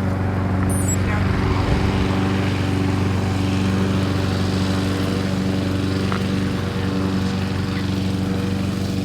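Steady drone of a vehicle's engine, holding one even pitch.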